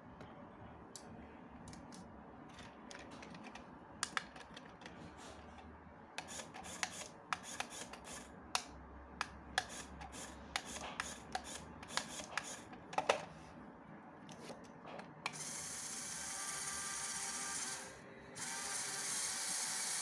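Scattered light plastic clicks and taps from a LEGO Technic drift car being handled. About three-quarters through, its small electric motor starts with a steady whir, cuts out briefly, then runs on.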